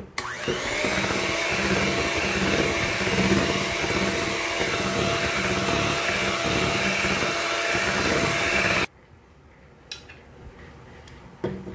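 Hanabishi electric hand mixer running with its beaters in cheesecake batter, the motor whine rising as it starts, then holding steady and cutting off suddenly about nine seconds in.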